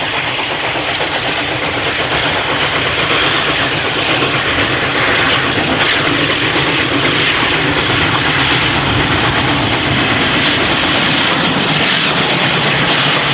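K class 2-8-0 steam locomotive K160 hauling its carriages towards the listener: a steady sound of steam and wheels on the rails that grows louder over the first few seconds as it draws near, then holds.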